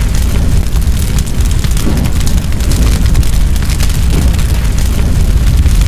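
Fire sound effect: a loud, steady rush of flames with a deep rumble and dense crackling.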